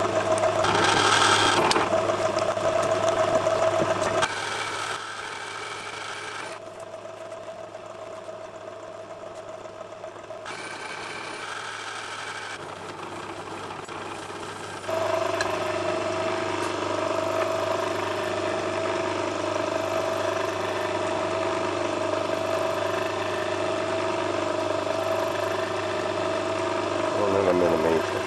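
Metal lathe running as it turns a bar of 7075-T6 aluminium: a steady machine whine and hum from the spindle drive, with tool-cutting noise. The level drops and jumps abruptly several times.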